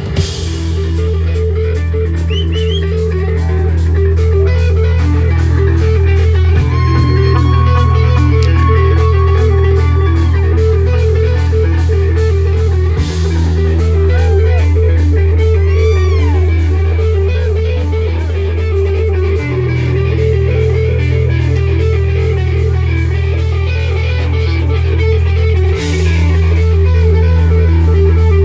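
Live rock band playing an instrumental passage: an electric guitar picks a fast repeating figure, with a few bent notes, over held bass notes that change about every six and a half seconds.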